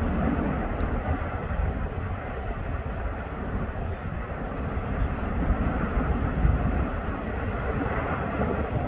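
Lava fountain at the erupting Fagradalsfjall vent: a steady low roar, mixed with wind buffeting the microphone.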